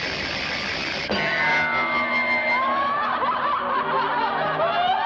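Cartoon soundtrack music: a noisy first second, then a held high note, giving way to a chorus of quick, high-pitched chattering that sounds like snickering.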